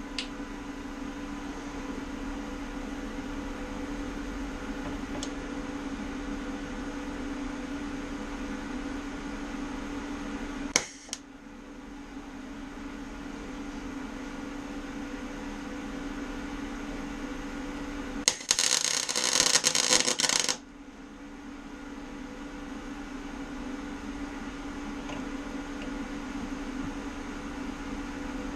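A steady hum, with a sharp click about eleven seconds in. Later comes one short MIG stitch weld from a Röhr MIG-200MI welder: about two seconds of arc crackle that starts and stops abruptly.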